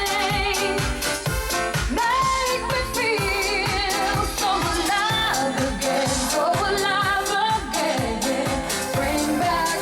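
Pop song playing, a singing voice with vibrato over a steady beat.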